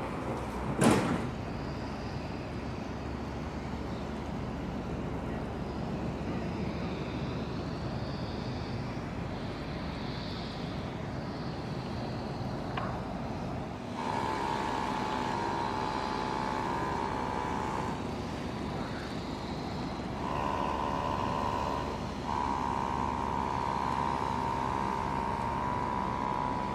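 Steady outdoor background rumble of the kind distant traffic makes, with one sharp knock about a second in. From about halfway, a steady mechanical hum joins it, breaking off twice before carrying on.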